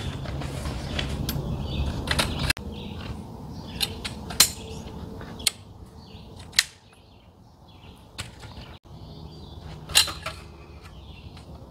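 Metal tent poles clinking and clacking as sections are handled and fitted together on an aluminium camp table: a few sharp separate clicks, the loudest about four seconds in and near the end.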